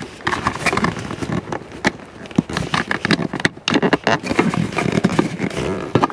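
Rapid irregular clicks, crackles and scrapes of the center high-mounted brake light's housing pieces and wiring being handled and pressed together.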